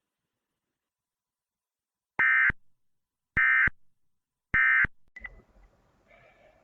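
Emergency Alert System digital data tones: three short, loud bursts of high-pitched warbling tone, a little over a second apart. Their shortness marks them as the end-of-message code that closes an alert broadcast.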